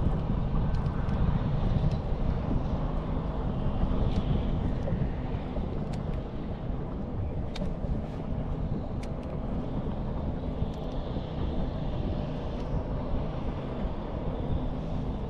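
Steady low rumble with a motor hum, typical of a bow-mounted electric trolling motor running under wind on the microphone, with a few faint sharp ticks.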